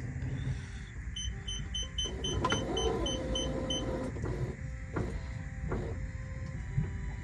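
Autopilot drive engaging with a motor hum, while the autopilot beeps rapidly, about four short high beeps a second, for nearly three seconds; a few sharp clicks follow.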